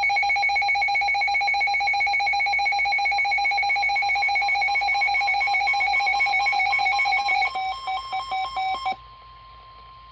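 A weather alert radio's alarm sounding a loud, rapidly pulsing electronic beep for about seven seconds, which breaks up and cuts off. Near the end, a quieter steady tone of about 1 kHz follows: the NOAA Weather Radio 1050 Hz warning alarm tone, announcing a severe thunderstorm warning.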